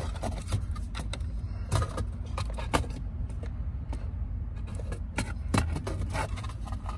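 Scattered light clicks and knocks of hard plastic parts being handled: a Dakota Digital VHX control box being set in and shifted around the open glove box of the car's dash. A steady low rumble runs underneath.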